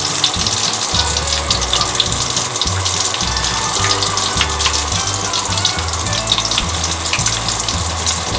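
Breaded chicken pieces frying in oil, a steady sizzle with many small crackles and pops. Background music with a repeating bass line plays under it.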